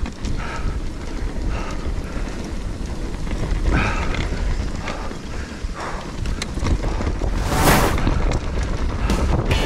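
Wind buffeting the microphone over the rumble and rattle of a mountain bike rolling fast down a rocky dirt trail, with a brief louder rush of noise about three-quarters of the way through.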